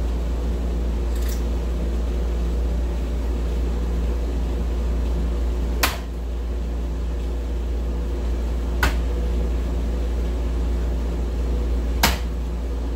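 Three soft-tip darts striking an electronic dartboard, a sharp click each, about three seconds apart, over a steady low hum.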